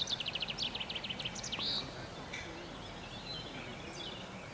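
A small songbird singing a fast run of short high notes that fall in pitch, ending in a brief flourish about two seconds in. Fainter bird chirps follow over steady outdoor background noise.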